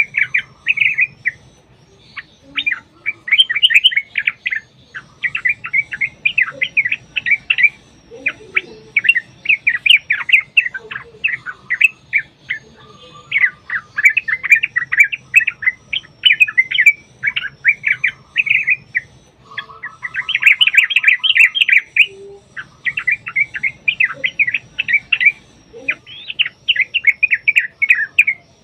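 Yellow-vented bulbuls (trucukan) chattering in long, fast, bubbly phrases, one run after another with only short breaks; the agitated, contesting calls used as a lure to set other bulbuls singing.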